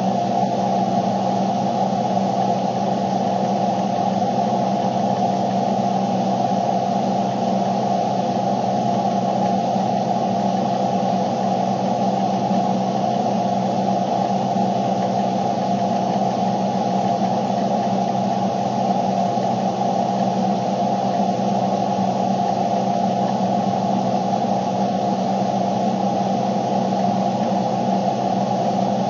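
A loud, steady hum made of several fixed tones under an even hiss, unchanging throughout.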